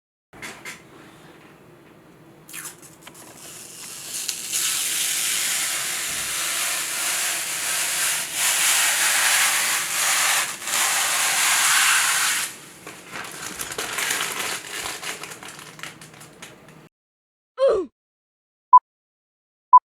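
A loud, steady hiss that swells up about four seconds in and cuts off about twelve seconds in, over a faint low hum that runs underneath until shortly before the end.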